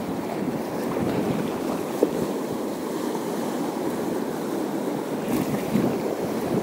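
Sea surf washing steadily against the shore, with a sharp click about two seconds in.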